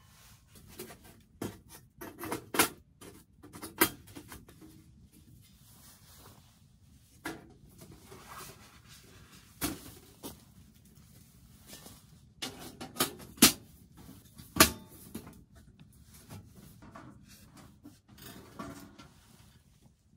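Folding sheet-metal camp oven being unfolded and its panels and racks handled: irregular metallic clicks and clanks, with the sharpest knocks coming in two clusters, a few seconds in and again about two-thirds of the way through.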